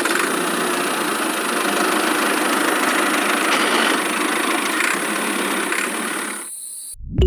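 Engine of a homemade machine running steadily, cutting off abruptly near the end.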